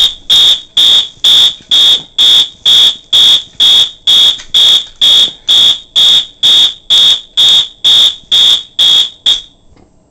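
Fire alarm horn sounding in march time: short, loud, high-pitched blasts about two a second, which stop about nine and a half seconds in.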